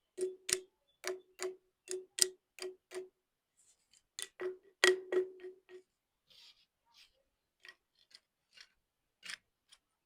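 Hard clinks against a glass, each with a short ringing tone: a quick run of about three a second, a louder cluster about four seconds in, then fainter scattered clicks.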